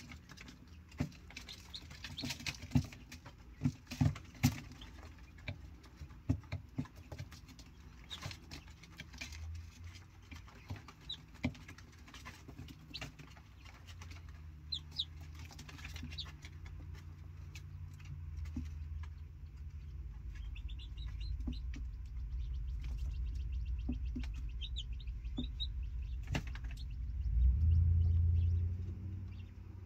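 Young chicks peeping in short high runs, with scattered sharp clicks and taps, most of them in the first third. A low rumble builds through the second half and swells briefly near the end.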